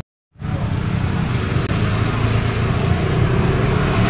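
A motorcycle engine running steadily, cutting in suddenly about a third of a second in.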